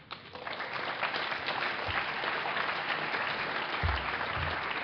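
Audience applauding: dense clapping that starts suddenly and holds steady.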